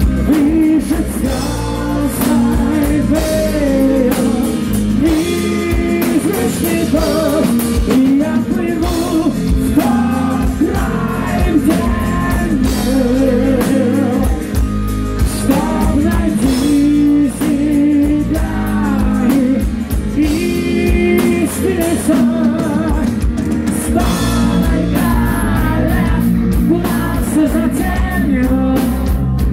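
Live heavy metal band: a male lead vocalist sings a melodic line into a microphone over electric guitars, bass and a drum kit, loud and continuous.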